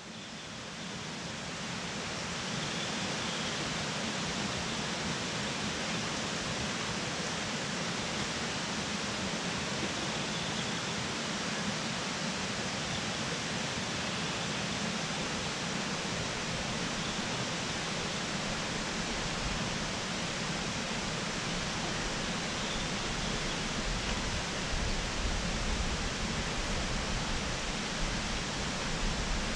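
Steady rush of a mountain creek's water pouring over rocks and cascades, fading in over the first couple of seconds. A low rumble joins it in the last third.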